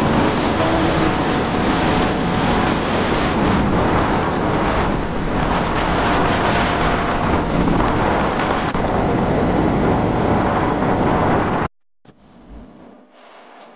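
Loud, steady rush of wind buffeting the microphone of a moving vehicle, with the vehicle's engine running underneath. It cuts off suddenly near the end, leaving only faint background sound.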